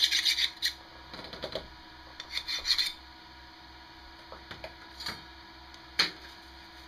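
Hand file rasping on a small metal bracket in quick back-and-forth strokes at the start, with a few more strokes about two and a half seconds in. Later come small clinks and one sharp knock about six seconds in.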